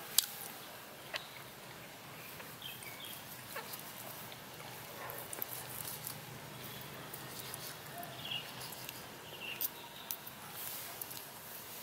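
A small knife slicing through crisp-skinned roasted pork belly on a small wooden board, with crackling as the crust gives and sharp clicks of the blade and fork against the board, the loudest just after the start and a cluster near the end. A few short, high animal calls sound faintly in the background.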